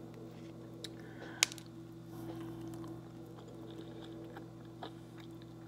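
Steady low hum with a few faint crackles and one sharp click about a second and a half in, as a crisp-battered fried chicken wing is handled before the bite.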